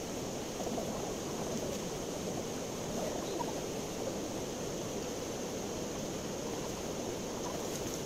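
Steady rushing of flowing river water.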